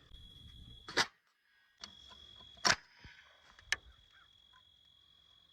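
Handling noise: a few scattered sharp clicks and taps, two of them louder, with a faint steady high whine underneath.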